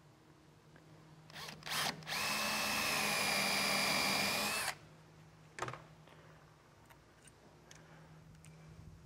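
Handheld power drill working on a wooden hull plank as it is fastened at the stem: two quick blips, then a steady whine held for about two and a half seconds before it stops. A single sharp click follows about a second later.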